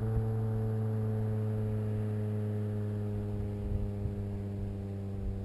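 2.0-litre Volkswagen Golf four-cylinder engine through a straight-pipe exhaust with a cold air intake, holding steady revs as a constant, even drone.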